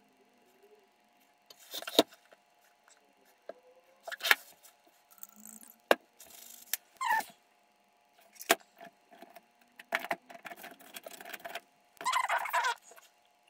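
Handling noises on a workbench: a painted clock dial shifted and turned on a cutting mat, with scattered sharp knocks and clicks, brief scrapes and a longer rustle near the end, over a faint steady hum.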